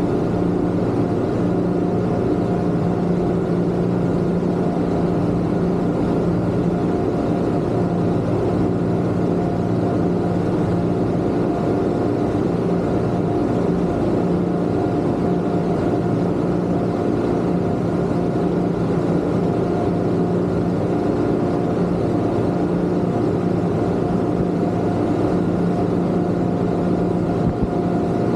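Twin Yamaha 250 outboard motors on a Kingfisher 3025 GFX running at a steady cruise: an even engine drone over a constant rush of noise from the moving boat, unchanging throughout.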